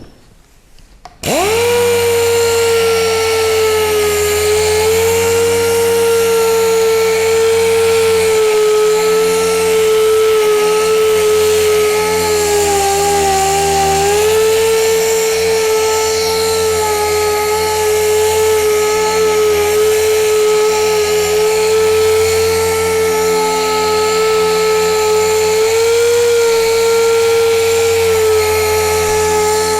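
Machine sander with a 3000-grit Trizact foam disc, sanding a headlight lens. It starts about a second in, spins quickly up to speed and runs steadily with a whining tone, dipping briefly in pitch about halfway through.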